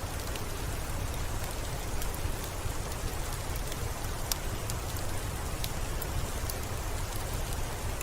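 Steady rain falling on a window pane, an even hiss with a low rumble underneath and scattered sharp ticks.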